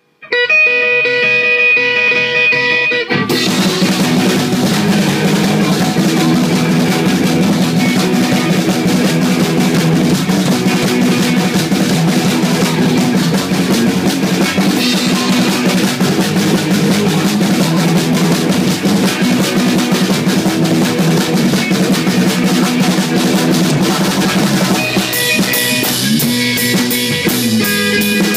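A rock band playing loud in a small rehearsal room, heard from beside the drum kit. A held guitar chord rings alone at first. About three seconds in, the drum kit, electric guitar and bass come in together and play on. Near the end the sound thins into a sparser, choppier passage.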